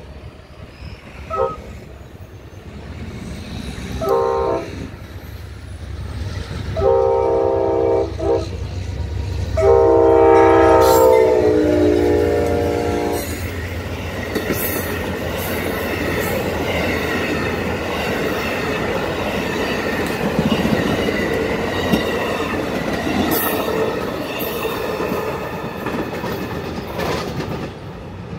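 Amtrak passenger train sounding its horn in several blasts, two short then two long, the last one dropping in pitch as the locomotive passes. The passenger cars then roll by with a steady rumble, wheel clatter and ringing wheel squeal, fading near the end.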